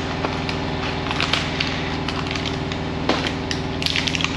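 Stiff plastic blister packaging of small LED marker lights crackling and snapping as it is pried open by hand, in several short sharp crackles. A steady low mechanical hum runs underneath.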